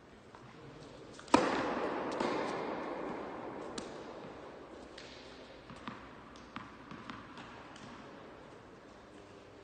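Tennis serve: one sharp crack of racket on ball about a second in, echoing through a large indoor hall, followed by a fainter ball knock. Several light ball taps come later as a ball is bounced before the next serve.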